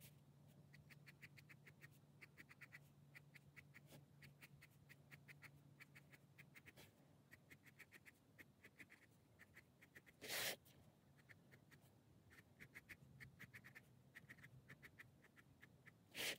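Faint scratching of a fine-tip pen drawing short strokes on sketchbook paper, in quick clusters of small scratches. Two brief louder noises break in, one about ten seconds in and one at the end.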